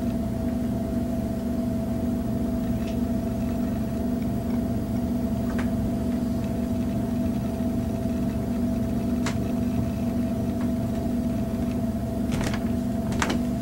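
Steady mechanical hum of running machinery, holding one pitch throughout, with a few faint clicks scattered through it and a cluster of them near the end.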